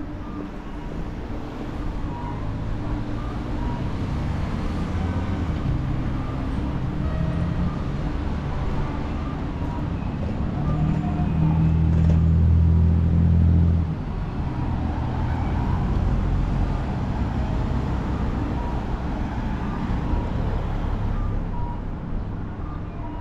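Low rumble of a passing vehicle. It builds to its loudest from about eleven to fourteen seconds in, then drops off suddenly, over a steady low hum.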